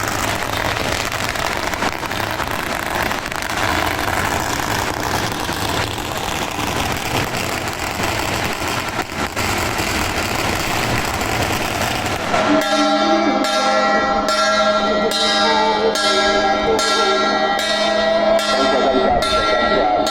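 A dense, even noisy din, which about twelve seconds in gives way abruptly to music with ringing, bell-like held tones over a steady beat of roughly one and a half pulses a second.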